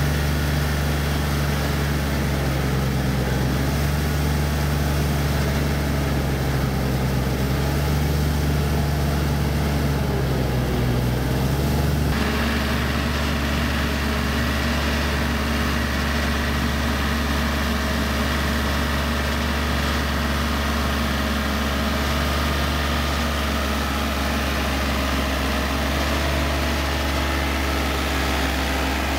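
Yanmar EF 393T four-wheel tractor's diesel engine running steadily under load while pulling a rotary tiller through flooded paddy mud. The engine note changes abruptly about twelve seconds in.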